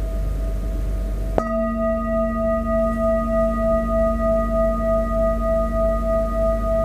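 Large metal singing bowl ringing with a slowly wavering tone. About a second and a half in, a mallet strike adds a lower tone and higher overtones that ring on together, pulsing gently.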